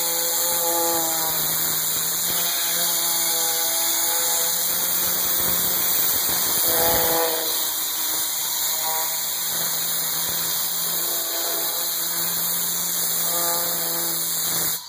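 Optiva MV-8000 steam washer's lance blowing a steady, loud jet of steam, with a steady hum beneath and a pitched tone that comes and goes every couple of seconds; it cuts off suddenly near the end.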